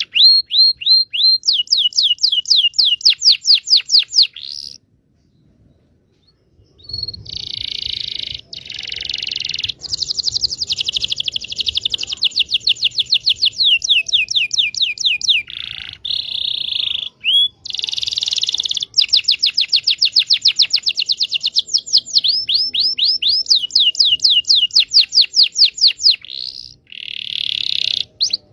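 Domestic canary singing long rolling trills: fast runs of rapidly repeated chirps, each run lasting a few seconds, with a pause of about two seconds near the first quarter.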